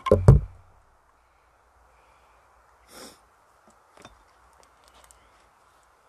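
Two heavy wooden knocks a fraction of a second apart, then a short soft rustle and a few light clicks.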